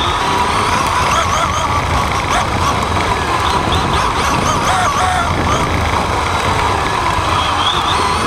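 RC off-road buggy racing on dirt, heard from a camera mounted on the car: a loud, steady rumble and noise of the drivetrain, tyres and wind on the microphone, with a short whine that wavers up and down with the throttle.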